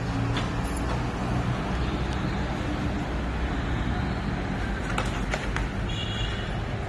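Steady low rumble of background noise, with a couple of light clicks about five seconds in and a short high beep near the end.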